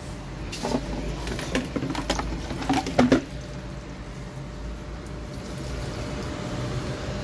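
Water sloshing and splashing as it is poured onto balcony plants, with a few knocks, for about the first three seconds, loudest near the end of that burst; then a steady low background noise.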